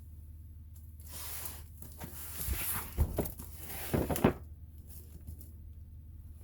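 Cardboard tool box being handled: rustling and scraping for a few seconds, with a few sharp knocks about three and four seconds in. A steady low hum runs underneath.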